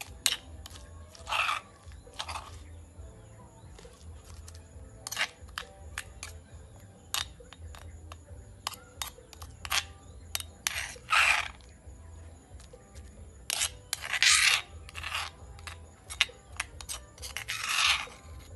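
Metal spoon scraping and clicking against a stone mortar while scooping out pounded paste. Sharp clicks come throughout, with about six louder scrapes, the strongest a little past the middle and near the end.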